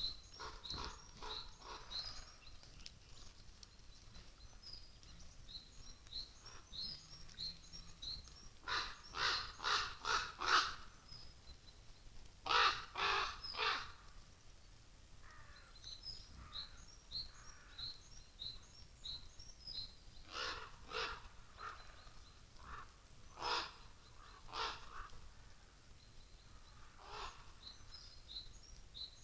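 Crows cawing in runs of three to five harsh calls, with pauses between runs. Small songbirds chirp high and thin throughout.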